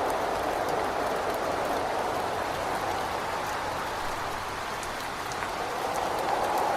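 Steady rain with scattered drops ticking against a window, and a whistling wind that eases a little in the middle and swells again near the end.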